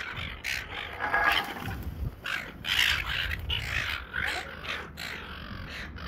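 A flock of silver gulls squawking over one another as they squabble for food, short, harsh, rasping calls coming thick and fast. A low wind rumble on the microphone runs underneath.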